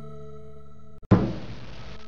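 Suspense film score: a held droning chord that cuts out briefly about a second in, then a single heavy impact hit with a long echoing decay.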